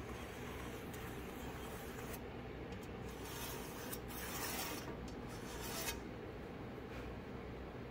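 Dry hand rubbing and scraping on the countertop workpiece, strongest for about three seconds in the middle, with a few light clicks, over a steady low shop hum.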